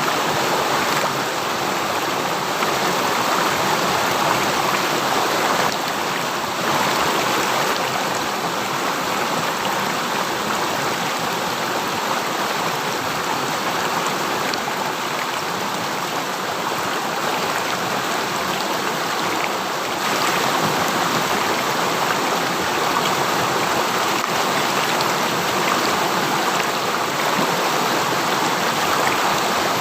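Steady rush of a flowing river stream.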